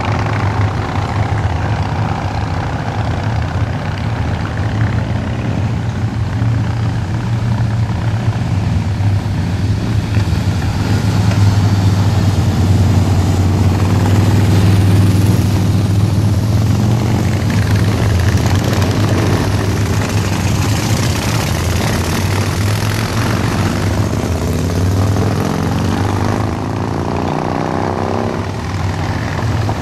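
A procession of cruiser motorcycles riding past, a continuous low engine rumble. Several times the engine note of a nearby bike rises as it accelerates out of the bend, most clearly near the end.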